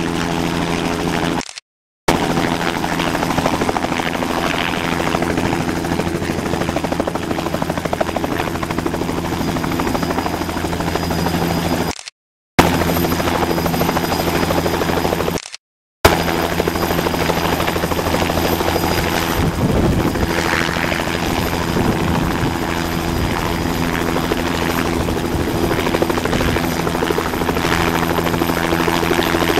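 Bell 206 JetRanger helicopter hovering low: its two-bladed main rotor and turbine run steadily, with a thin high whine above the rotor sound. The sound cuts out briefly three times, at the edits between shots.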